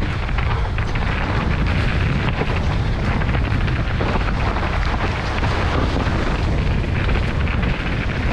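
Wind buffeting a helmet-mounted camera's microphone at high speed, over the steady rumble and rapid rattling clicks of a mountain bike rolling fast down a rough dirt trail.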